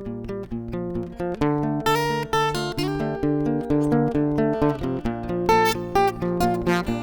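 Background music: acoustic guitar playing a steady run of plucked notes and strums, growing fuller and louder about a second and a half in.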